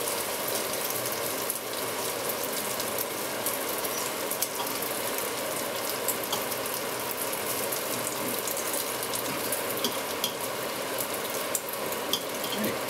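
Strips of smoked bacon sizzling in a black frying pan, a steady crackle with many small pops of spitting fat, as they fry to nearly crisp.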